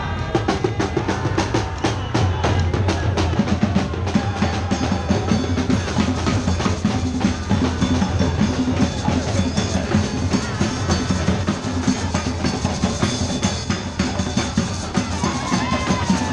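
Parade music driven by drums: a fast, busy beat of drum strokes over steady low notes.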